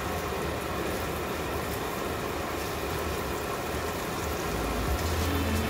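Pork sausage patty frying in oil in a nonstick pan: a steady sizzle of bubbling fat.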